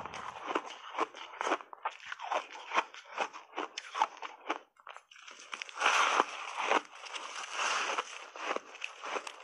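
Refrozen ice chunks crunching and cracking between the teeth, close to lapel microphones: quick chewing crunches, a brief pause about halfway, then louder, denser crunching as a big new chunk is bitten into.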